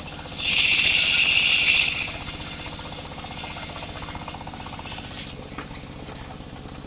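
Engine of a mobile circular saw rig running steadily, with a loud hissing burst starting about half a second in and lasting about a second and a half.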